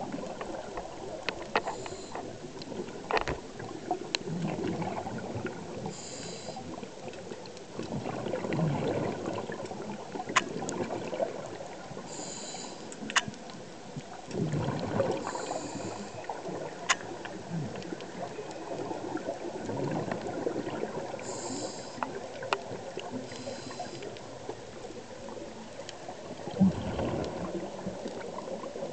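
Scuba diver breathing through a regulator, heard underwater. Short hissing inhalations alternate with rushes of exhaled bubbles every few seconds, with scattered sharp clicks and ticks throughout.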